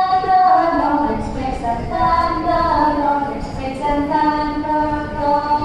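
Children's voices singing a hymn, with long held notes.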